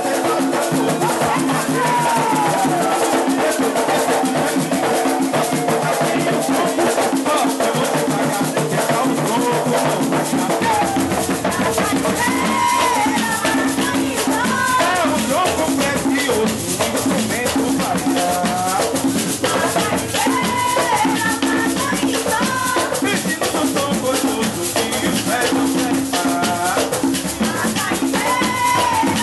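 Pernambuco folk percussion music, typical of coco: a shaker rattles steadily over drums while voices sing. A deeper drum layer comes in about ten seconds in.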